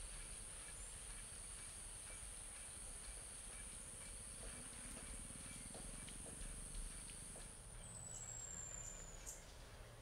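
Outdoor ambience: a steady, high-pitched insect drone that slides down in pitch and stops a little before the end, with faint scattered bird calls and clicks.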